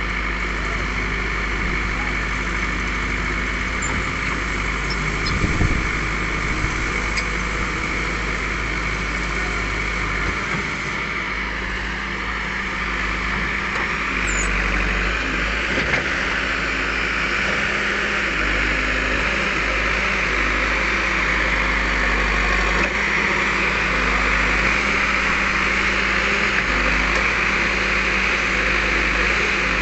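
Heavy diesel engine running steadily, with people's voices mixed in.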